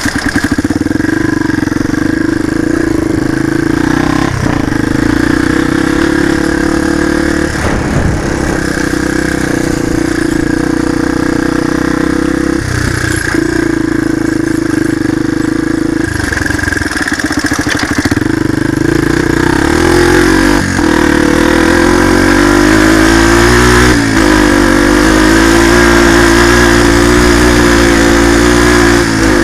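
125cc single-cylinder four-stroke motorcycle engine running under way, its pitch climbing and then dropping sharply every few seconds as the rider changes gear, with wind noise over it.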